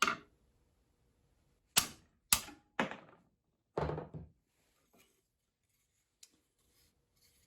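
Sharp taps driving a lead key weight back out of its hole in a wooden piano key, about five knocks spread over the first four seconds, then a couple of faint ticks.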